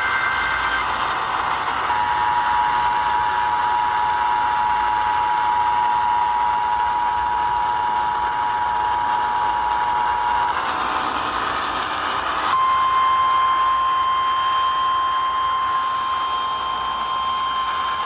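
Emergency Alert System tones over hissing radio static. A data burst ends right at the start, then the two-tone attention signal sounds from about two seconds in until about ten and a half seconds. After a short stretch of static, the single-tone weather radio warning alarm starts and holds steady.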